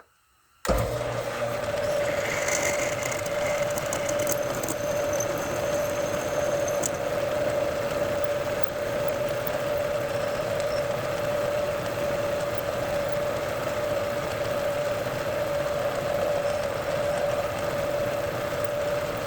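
Metal lathe running steadily with a drill bit feeding into a 416 stainless steel slug, pre-drilling a hole for tapping, with a steady mid-pitched hum. The sound starts abruptly about a second in, and a faint high squeal comes and goes between about two and seven seconds in.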